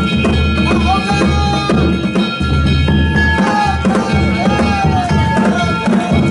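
Danjiri float music: a deep drum beaten continuously with small hand gongs ringing over it. The drum breaks off briefly twice around the middle.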